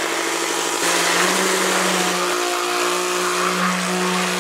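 Hand-held immersion (stick) blender running in a bowl of melted soap oils, mixing in milk powders. Its motor whine is steady and shifts in pitch about a second in and again about two seconds in.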